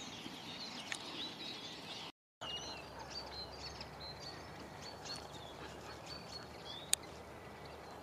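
Small birds singing, many short high chirps and whistles overlapping over a soft outdoor hiss. The sound cuts out for a moment about two seconds in, and there is a single sharp click near the end.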